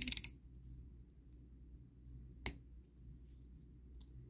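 A quick run of sharp clicks from a snap-off utility knife as its blade is handled, then a single sharp click about two and a half seconds in and faint ticks as the blade works at a plastic peg.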